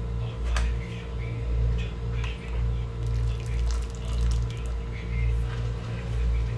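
Water dripping and splashing as boiled bitter gourds are lifted out of their cooking water with metal tongs, with a few light clinks of the tongs against the pan, over a steady low rumble.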